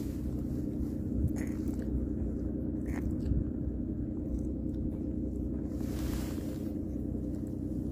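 A few faint clicks and scrapes from gloved hands handling a baitcasting rod and reel as the jig is let fall, over a steady low hum.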